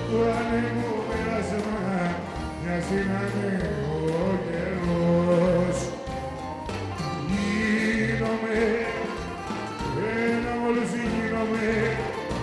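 Live band playing Greek popular music, with keyboard and guitars, a melody line that bends in pitch and a steady bass line.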